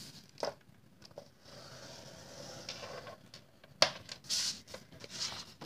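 A scoring stylus drawn along a score line in cardstock on a grooved scoring board: a faint, steady scrape about two seconds long. About two thirds of the way in comes a sharp tap, then some light rustling and clicks as the card is handled.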